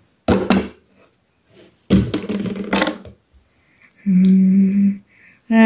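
A child's voice making wordless vocal noises: two short bursts, then a steady hum held for about a second near the end.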